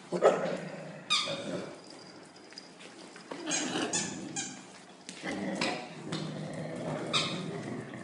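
Puppies playing, with several short high-pitched squeals and yips over lower rough play noises.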